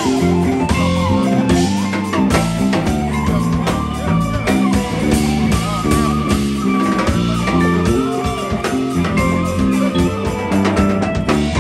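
Live jazz band playing: vibraphone struck with mallets, electric bass, electric guitar, keyboard and drum kit with steady cymbal strokes.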